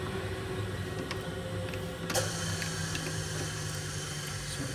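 Steady machine hum, with a sharp metallic click about two seconds in as a T-handle chuck key is turned in a four-jaw lathe chuck to loosen its jaws on a wooden bangle.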